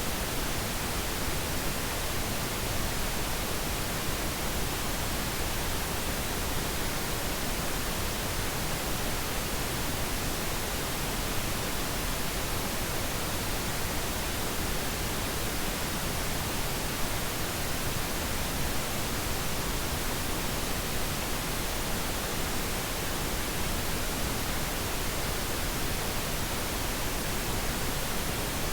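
Steady pink noise: an even, unbroken hiss across the whole range, unchanging in level, played as a sleep aid.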